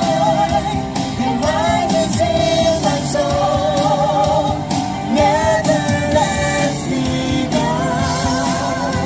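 Music with singing: a held, wavering melody line over a full band with a steady beat.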